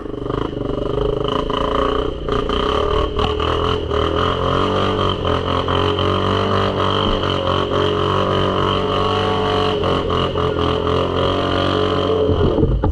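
ATV engine held at high revs under load on an icy, slippery track, a steady drone with scattered clicks and knocks, cutting off sharply near the end.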